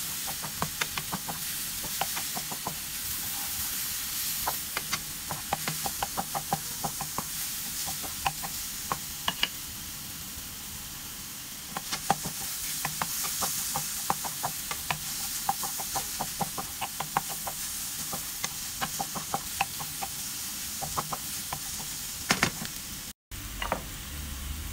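Chopped mushrooms and butter sizzling in a frying pan, with a wooden spoon stirring and scraping, tapping the pan over and over. The sound cuts out for a moment near the end.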